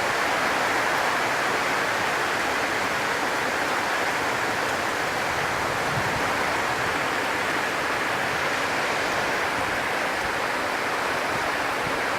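Heavy rain pouring down steadily, an even hiss with no break or change.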